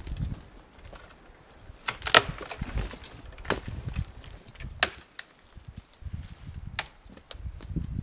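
Dry dead conifer branches cracking and snapping sharply as they are broken off a tree, about four loud cracks with the loudest about two seconds in, amid rustling and crunching of twigs.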